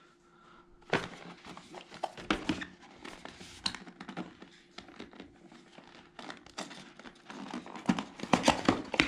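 Product packaging being handled and opened: plastic wrap crinkling, with scattered small clicks and taps that grow busier and louder near the end.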